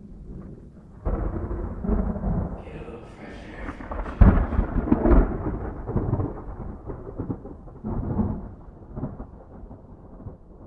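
Thunder rumbling: a sudden deep roll about a second in, a loud crack about four seconds in, then further rolls fading away toward the end.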